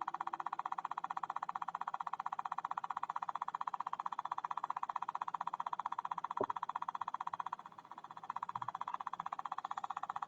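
Schumann resonance track from a tone generator: a steady mid-pitched tone pulsing as rapid, even clicks about eight times a second (7.83 Hz). A lower ringing tone fades out in the first half-second, there is a single knock about six seconds in, and the pulsing drops away briefly near eight seconds.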